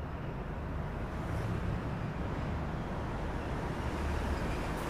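Motorcycle engine running as the bike comes closer: a steady low drone that grows a little louder.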